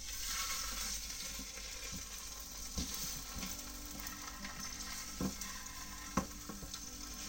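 Salmon fillets frying skin-side down in smoking-hot olive oil: a steady sizzle that starts as the fish goes into the pan. Three light knocks come about three, five and six seconds in.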